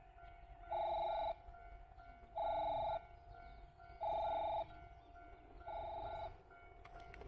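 Electronic train-approach warning at a Japanese railway station: a beep about half a second long repeats every second and a half or so over a steady tone, signalling that a train is coming.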